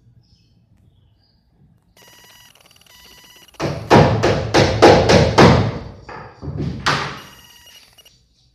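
A quick run of about eight loud knocks, roughly three a second, with a short pause before the last ones. A faint steady ringing tone comes before and after them.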